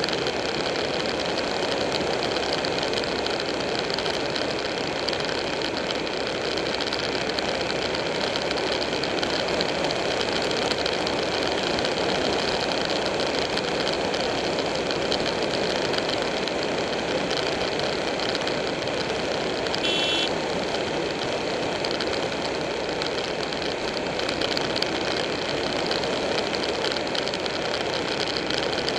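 Buell 1125R motorcycle's V-twin engine running at a steady cruise, mixed with wind and road noise on a bike-mounted camera. A brief high chirp sounds about two-thirds of the way in.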